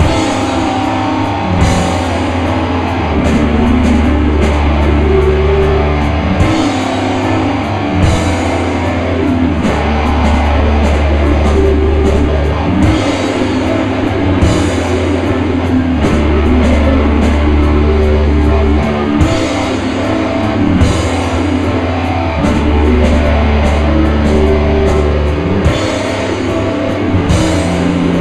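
Live rock band playing, with distorted electric guitars, bass and a drum kit, and cymbal crashes every couple of seconds.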